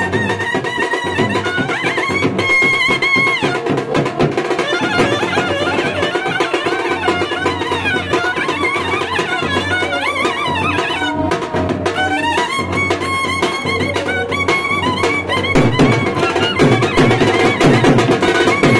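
A street brass band plays a devotional song: clarinets lead the wavering melody with trumpets, over snare drums, a bass drum and cymbals. The melody drops out for a moment about halfway through while the drums carry on, then comes back a little louder.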